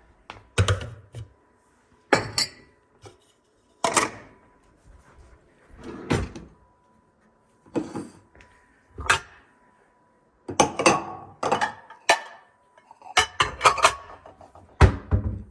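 Kitchen clatter of dishes being unloaded and put away: a string of separate knocks and clinks of dishware set down, with cupboard doors thudding shut, busier in the second half.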